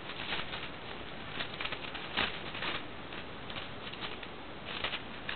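Thin Bible pages being leafed through, short irregular rustles over a steady hiss.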